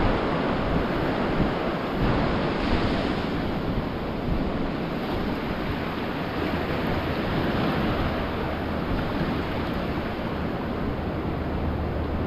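Ocean surf breaking and washing onto a beach: a steady rush of waves.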